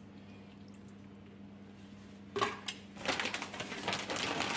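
Faint steady hum, then from about two and a half seconds in a click and dense, crinkly rustling of a plastic packet of grated cheese being opened and handled.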